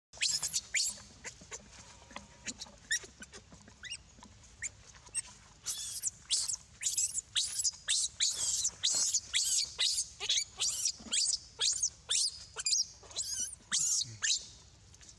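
Baby monkey screaming: a long run of short, very high-pitched squeals, coming faster and louder about halfway through.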